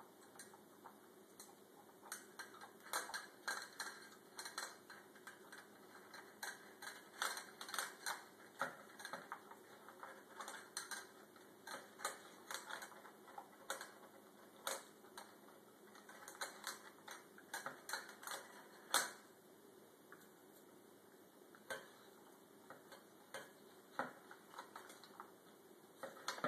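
German Shepherd puppy eating dry kibble from a bowl: crunching and kibble clicking against the bowl, in irregular clicks several times a second, with one louder clack about two-thirds of the way through.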